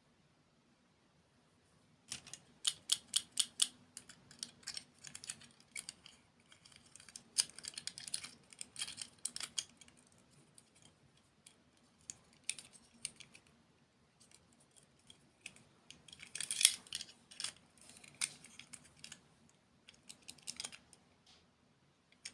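Close-miked chewing of crunchy dessert food, heard as rapid crisp crunches and crackles in uneven bursts with short pauses. It starts about two seconds in and the loudest crunch comes past the middle.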